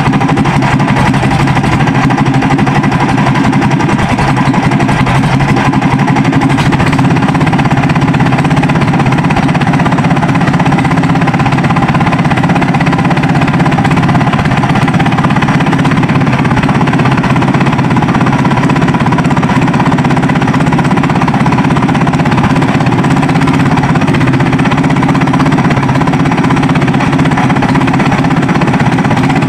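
Sumo Rato SE150M 15 hp single-cylinder gasoline engine running steadily and unloaded, at a constant speed.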